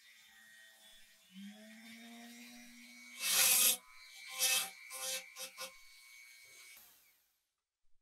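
Flex-shaft rotary tool running with a steady whine, its small conical grinding bit scraping rust and old paint inside a cast-iron pump base: one loud grinding burst about three seconds in, then several shorter ones. The tool stops near the end.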